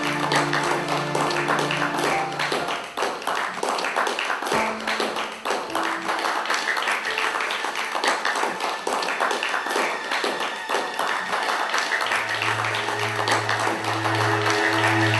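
Audience clapping steadily, many hands at once, mixed with film score music of held notes.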